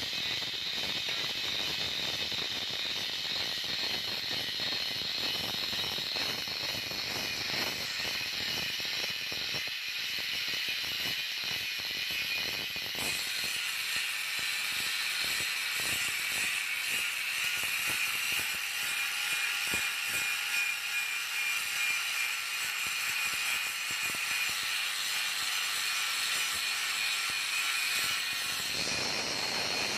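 Electric angle grinder running with its disc pressed against the end of a steel pipe, grinding a weld bevel onto the edge: a steady high whine over a rough, crackling scrape of the disc on the steel. The whine drops a little lower about a third of the way in and comes back up near the end.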